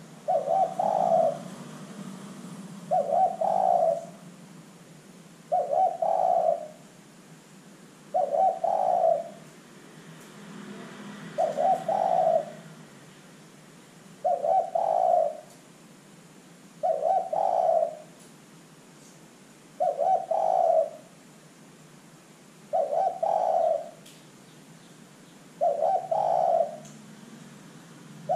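Spotted dove cooing: about ten coos of roughly a second each, repeated steadily about every three seconds.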